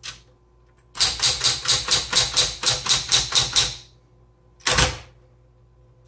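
1960s Smith-Corona Coronet Automatic electric typewriter being typed on: a quick, even run of key strikes, about six a second, for nearly three seconds, then a single heavier thump about a second later. A faint steady hum from the running motor sits underneath.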